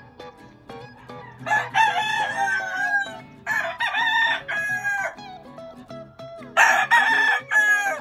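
Rooster crowing three times, each crow loud and about a second and a half long.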